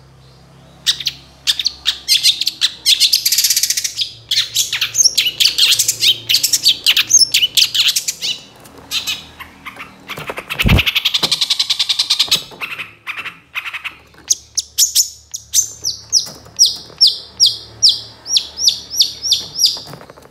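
Long-tailed shrike calling: fast, harsh chattering notes, then a steady run of sharp repeated calls, a few a second, through the last few seconds. A single low knock sounds about halfway through.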